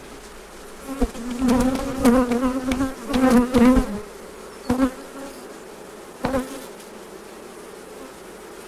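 Honeybees buzzing close past the microphone from an opened hive, a wavering hum that swells and fades several times, loudest in the first four seconds. The colony has been disturbed by the frame work and the bees are coming out agitated.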